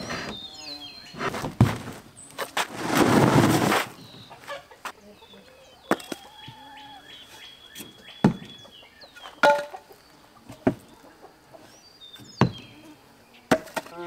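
Young Cornish Cross meat chickens clucking and peeping, with scattered sharp clicks and a loud burst of rustling noise about three seconds in.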